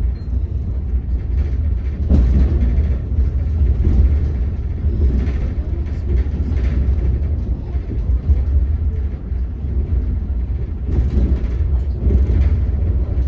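Passenger train coach running along the track, heard from inside: a steady, loud low rumble of wheels on rails, with a few brief louder surges.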